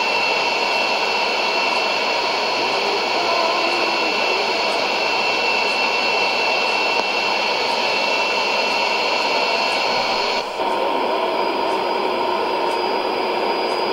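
Shortwave AM reception on a Sony ICF-2001D receiver at 15560 kHz: steady static hiss with a few thin, steady whistling tones, the broadcast buried under the noise of a weak signal. About ten seconds in, the higher part of the hiss suddenly cuts off.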